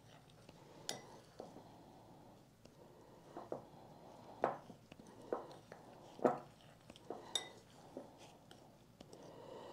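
Metal spoon stirring a dry powder mix in a clear Pyrex glass bowl: soft scraping with irregular clinks of the spoon against the glass, the loudest about four and a half and six seconds in.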